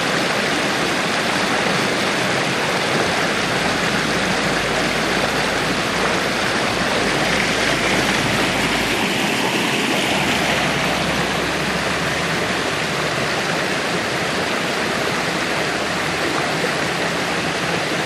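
Spring water flowing out of a cave, rushing and splashing down small cascades over mossy rocks: a steady rush of running water.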